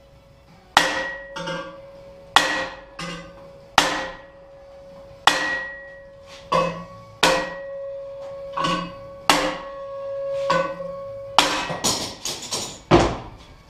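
Hand hammer (engineer's hammer) striking a welded metal frame and bracket clamped with vise grips, blows coming roughly every second. Each blow leaves the metal ringing with a clear tone. Near the end comes a quick flurry of blows and then one heavier thud.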